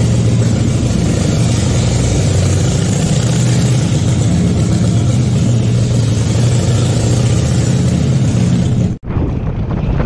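Harley-Davidson Fat Boy's V-twin engine running steadily at low speed, echoing off the concrete of an underground garage. It cuts out sharply about nine seconds in and gives way to a lighter riding sound.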